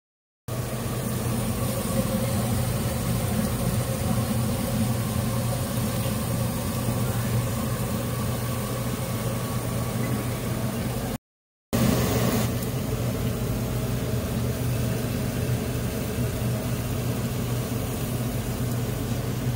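Steady low mechanical hum with a hiss over it, like a motor or fan running. It breaks off for about half a second around eleven seconds in.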